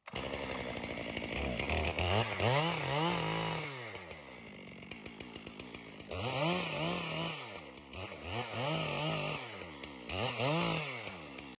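Chainsaw cutting up slash branches, revving up and falling back several times, with a quieter stretch at idle about four to six seconds in.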